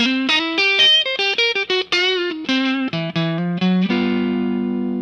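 Intro theme music: an electric guitar plays a quick riff of single picked notes, a couple of them bent and wavering, then strikes a chord about four seconds in that rings on and slowly fades.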